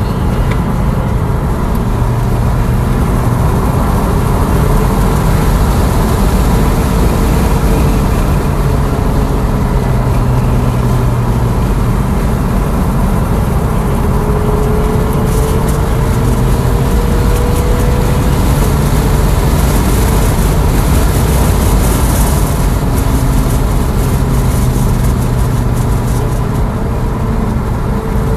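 Inside the cabin of a Tesla Model S Plaid at about 50 mph: steady tyre and road rumble with wind noise, and a thin electric-drive whine that rises slowly in pitch twice as the car picks up speed.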